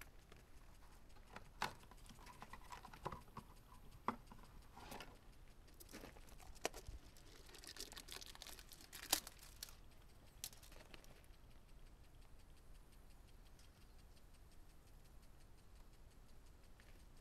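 Light clicks and knocks of gloved hands and tools working on the fuel filter in an excavator's engine bay, a few sharp ones in the first ten seconds with a short hiss just before the loudest. From about ten seconds in, a faint, fast, even ticking.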